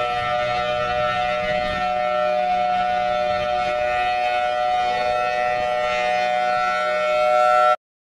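Peru's civil defence alarm siren sounding a steady chord of several tones at a constant pitch. It grows slightly louder near the end, then cuts off abruptly.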